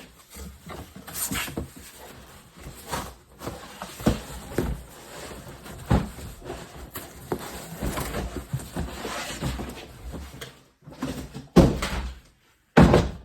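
A Milwaukee Packout cabinet and its packaging being handled during unboxing: scattered knocks, scrapes and rustling, with two loud clunks near the end.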